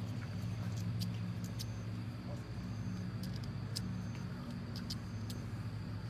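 A steady low motor hum, like a running vehicle engine, with scattered sharp clicks over it.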